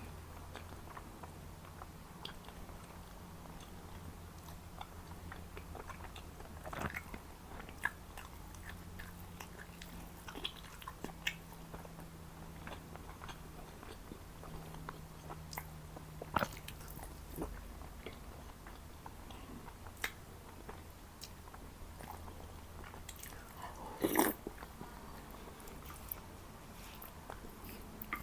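Close-miked eating of Jordanian mansaf: soft chewing with scattered wet mouth clicks and smacks, one louder bite near the end, over a faint steady low hum.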